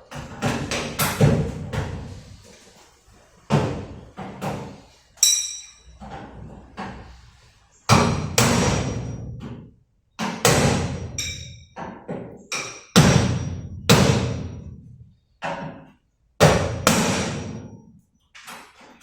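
Hammer blows on metal at uneven intervals, about fifteen strikes, each one sharp with a short ringing decay.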